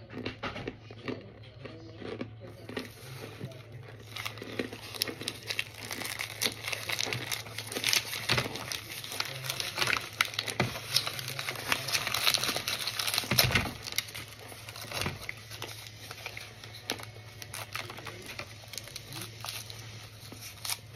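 Baked cornstarch chunks crunching in a dense run of crisp crackles, busiest and loudest in the middle, over a steady low hum.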